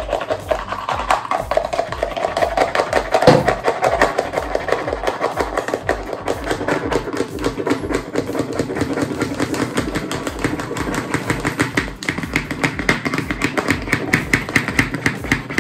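Hand-pumped plastic foam-maker cup whipping soapy face cleanser into foam: the plunger is worked up and down in fast, even strokes, with a sharper knock about three seconds in.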